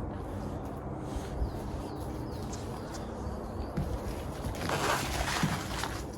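Footsteps on a trail over a steady low rumble, with a louder scuff or rustle about five seconds in.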